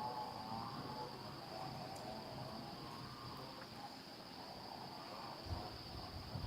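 Rainforest soundscape: a steady high insect drone, with wavering animal calls lower down. Low thumps come in near the end.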